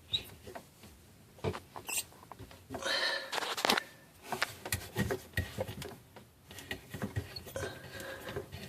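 A freshly repaired Delta faucet's hot water being turned on. Water splashes into the sink in uneven spells, with short squeaks and clicks from the handle and fittings.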